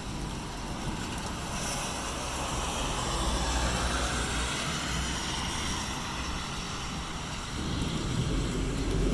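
Rain falling steadily, with wind buffeting the microphone. A broad hiss swells and fades through the middle, and a low rumble builds near the end.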